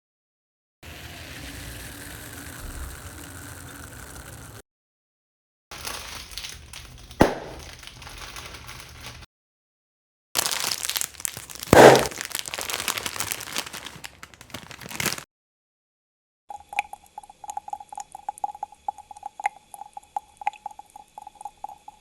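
A run of four separate Foley sound effects, each cut off into dead silence. First comes a steady rushing noise for about four seconds. Then a noisy clip with one sharp hit, a louder clip with a strong crash-like hit near its start, and last a crackle of scattered clicks over a steady hum.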